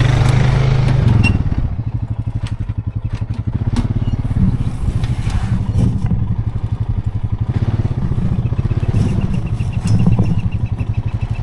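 An engine running steadily at low revs, with a few sharp knocks and clatters.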